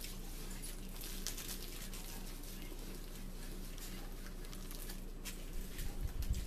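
Quiet room with a steady low electrical hum, under faint scattered clicks and rustles of people eating at a table. A few low thumps come near the end.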